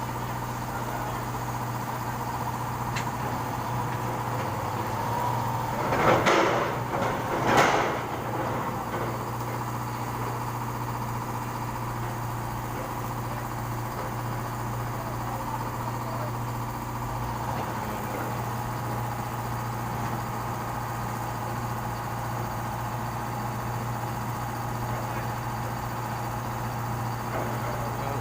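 Heavy equipment engine running steadily, with two short loud bursts of noise about six and seven and a half seconds in.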